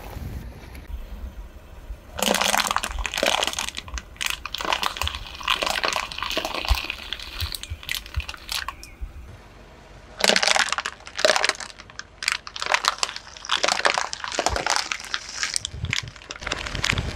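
Car tyre rolling over plastic bottles filled with water beads: the plastic crackles and crumples in two long runs, the second starting about ten seconds in.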